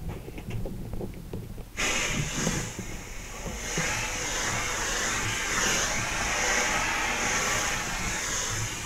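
A few low knocks and clatter, then about two seconds in a fire hose nozzle opens: a sudden steady hiss and rush of water spray that carries on without a break.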